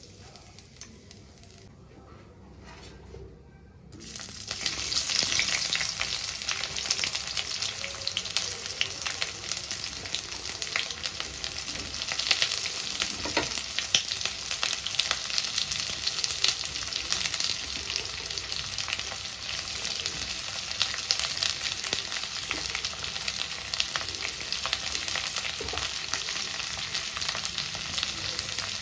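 Sliced red onions drop into hot oil in a metal karahi about four seconds in and start sizzling and crackling steadily as they fry, with scattered louder pops.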